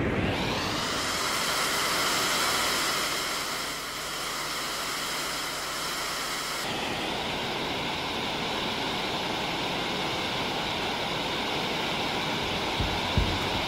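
Experimental live electronic music: a dense, steady wash of noise like rushing water, with several held tones ringing through it. About seven seconds in the texture changes abruptly and turns brighter, and low thuds begin near the end.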